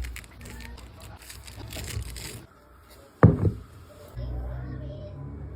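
Kitchen handling noise with one sharp knock about three seconds in, followed by a brief ring.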